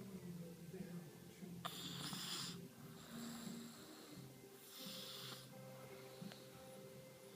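Someone snoring softly, two breaths about three seconds apart, over quiet background music.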